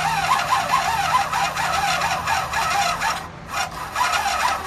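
Electric starter cranking the 1972 Honda CB500 Four's engine, a rhythmic rasping chug at about five beats a second without the engine catching, with a brief break about three and a half seconds in.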